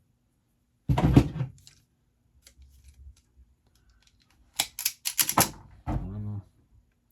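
Wire and hand tools handled on a workbench while cutting harness wires to length: a louder clatter about a second in, then scattered small ticks and a quick run of sharp clicks and snaps, with a brief low hum near the end.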